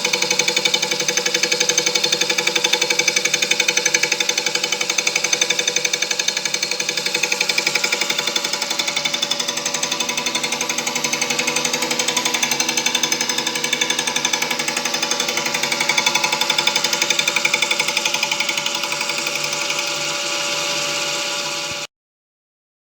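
A machine running with a rapid, steady hammering pulse, cutting off suddenly near the end.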